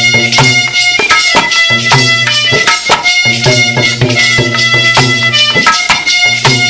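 Instrumental interlude of Rajasthani folk music: a harmonium holds reedy notes over a quick, steady hand-drum beat.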